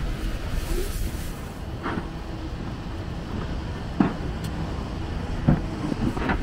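City street traffic: a steady low rumble of passing vehicles, with a few short sharp knocks. The two clearest knocks come about four seconds in and a second and a half later.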